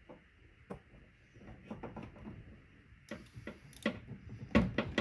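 Metal hand tools clicking and knocking: a socket on long extensions and an open-end wrench being fitted onto a fuel pressure sensor's fitting. The knocks are irregular and get sharper and louder toward the end.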